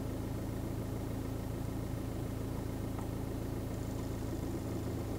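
VW Jetta engine idling steadily, heard from inside the car: an even low hum.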